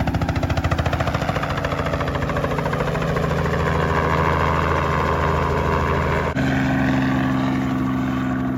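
A boat's engine running steadily, with its pitch stepping up suddenly about six seconds in.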